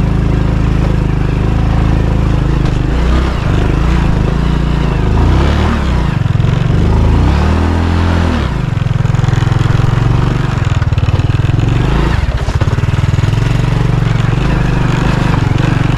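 Motorcycle engine working hard on a rough, steep track, its revs rising and falling.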